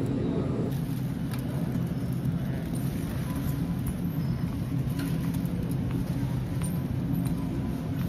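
Shopping cart rolling across a store floor: a steady low rumble with light scattered clicks and rattles.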